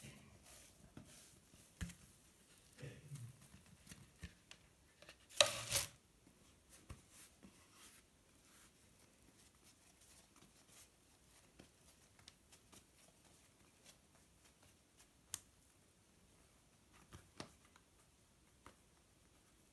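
Faint handling noises as bread dough is worked by hand on a floured wooden board: scattered light taps and rustles, with one louder rustling scrape lasting about half a second about five seconds in. After that it is mostly quiet, with a few soft clicks.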